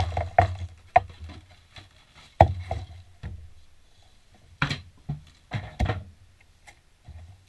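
Boxed fishing-lure packages and shredded paper filler being dumped and pulled out onto a wooden desk: a series of sharp knocks and thuds as things hit the desktop, with paper rustling between them.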